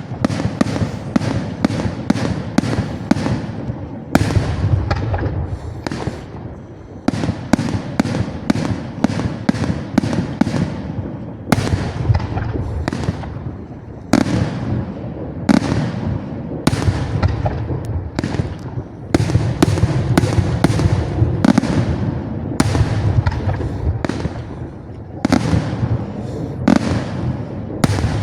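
Aerial fireworks display: shell bursts bang in quick succession, about two or three a second, over a continuous low rumble and crackle.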